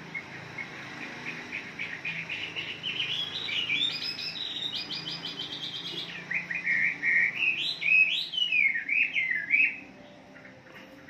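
Chinese hwamei (Garrulax canorus) singing: a run of quick repeated notes climbing in pitch, then louder whistled phrases that slide up and down, stopping about ten seconds in.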